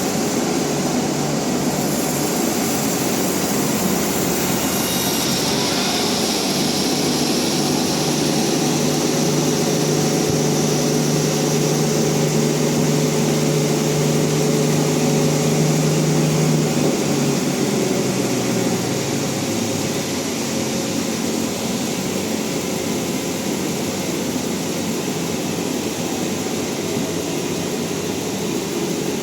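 Bandsaw sawmill machinery running with a steady hum that drops in pitch about two-thirds of the way through, then holds steady at the lower pitch.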